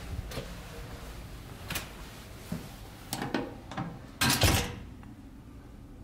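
A heavy card-key door being opened and let close: scattered clicks and knocks of the handle and latch, then a loud clunk about four seconds in as the door shuts.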